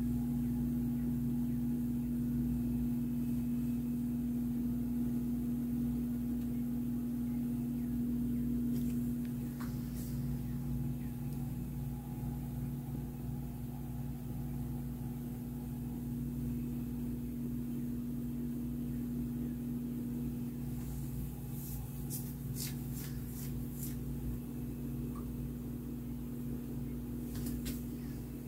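A steady low hum, with a few faint clicks about a third of the way in and more near the end.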